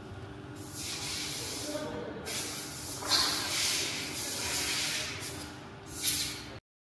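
Scratchy, hissing rubbing as fingers handle and pull at a cut piece of felt, in a few stretches of a second or more, over a faint steady hum.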